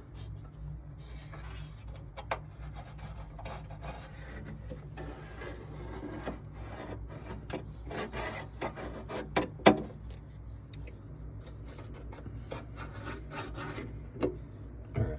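Marker tracing along the edge of a sheet-metal floor pan, with rubbing and scraping and scattered small clicks. There is a sharp knock about ten seconds in and a steady low hum underneath.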